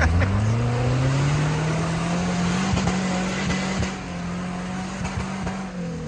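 An off-road vehicle's engine revving up over the first second, then held at high, steady revs, with a few short knocks along the way; the revs begin to drop at the very end.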